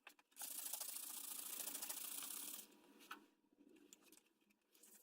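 A fast, rasping scrape lasting about two seconds, then a few light clicks and taps.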